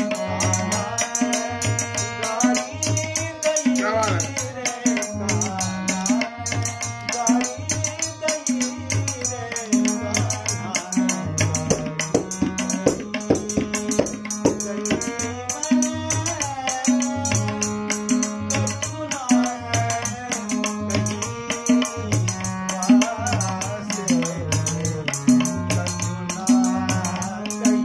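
Classical Kumauni Holi song: a man's solo voice singing over a harmonium, with hand percussion and a rattling jingle keeping a steady beat.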